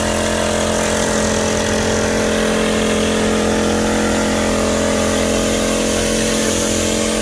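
Small petrol engine of a backpack power sprayer running steadily at constant speed, driving the pump while the lance sprays a fine mist.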